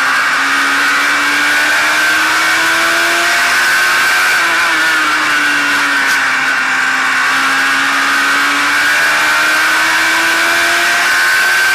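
A race car's engine heard on board at racing speed. Its pitch climbs along each straight and drops back as the driver lifts for the turns, about 4 seconds in and again near the end, over a steady rush of wind noise.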